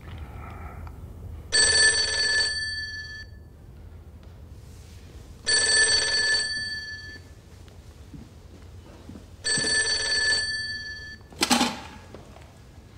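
Old desk telephone ringing: three rings about four seconds apart, each about a second long. After the last ring comes a short clatter as the handset is picked up.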